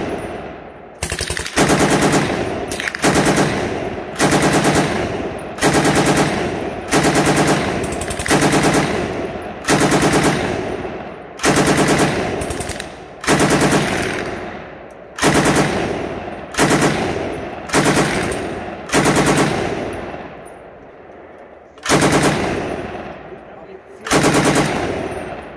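M60 7.62 mm belt-fed machine gun firing a long string of short bursts, about one burst every second or so, each a quick run of rounds that trails off in echo, with a longer pause about three quarters of the way through.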